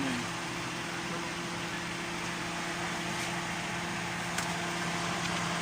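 Steady mechanical hum with a constant low tone and even hiss, with a faint click about four and a half seconds in.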